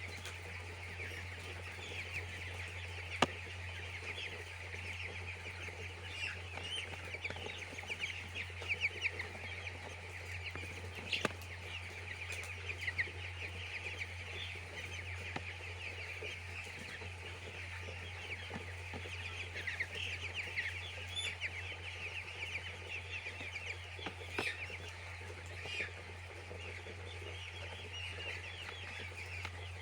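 A flock of young chicks peeping, a dense, continuous chorus of short high chirps, over a steady low hum. A sharp click about three seconds in.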